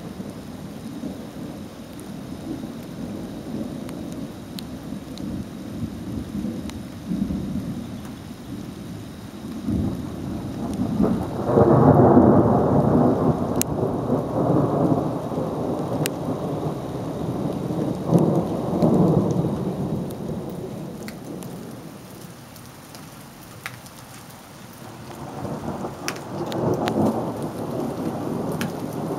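Thunderstorm: thunder rumbling in long rolls, swelling loudest about eleven seconds in, dying down, then building again near the end, over steady rain with scattered sharp drop ticks.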